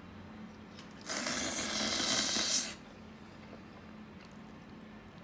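A burst of steady hiss starting about a second in, lasting about a second and a half, then stopping abruptly, over faint room tone.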